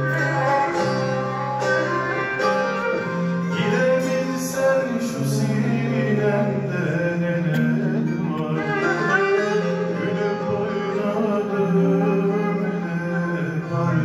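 Turkish folk song performed live by a choir with plucked-string accompaniment, including guitar; voices sing long held notes over the strings.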